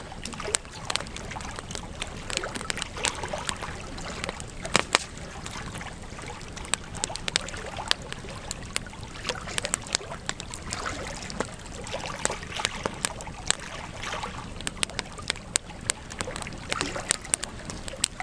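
Wood campfire crackling: irregular sharp pops and snaps over a steady low hiss of the burning fire.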